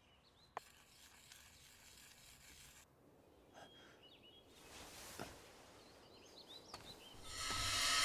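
Quiet background ambience with a faint hiss, a single sharp click about half a second in, and a few faint high chirps; music swells in near the end.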